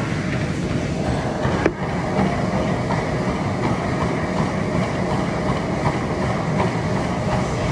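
Treadmill running: the belt and motor keep up a steady rumble, with regular thuds of footfalls on the deck and a sharp knock about two seconds in.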